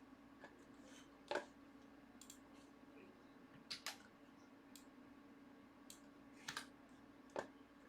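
Near silence with about six scattered faint clicks and taps.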